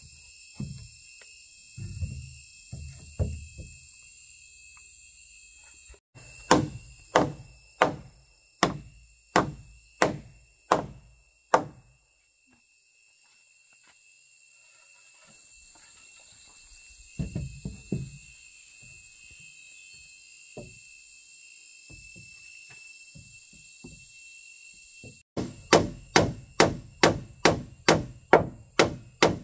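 A hand tool striking wood in runs of blows: a few uneven knocks, then a steady run of about eight strikes, a few more knocks, and near the end a faster run of about three strikes a second. A steady high insect buzz goes on underneath.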